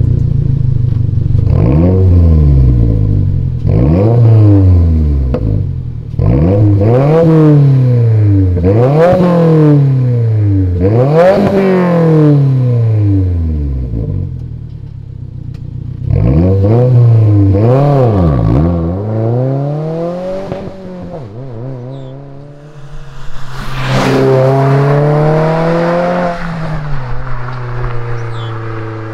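2022 Subaru WRX's turbocharged 2.4-litre flat-four revved repeatedly through an ETS cat-back exhaust with the car standing still: about eight quick blips, each climbing in pitch and dropping back. Near the end comes a longer, steadier pull.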